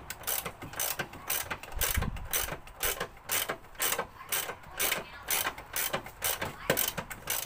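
Hand ratchet being worked back and forth to tighten the bolt holding the battery negative (earth) cable terminal. It makes a steady run of clicking strokes, about three a second.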